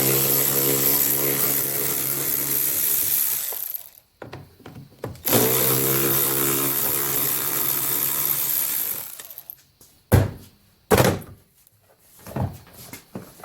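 Cordless drill/driver motor running in two steady runs of about four seconds each, then two sharp thunks about a second apart.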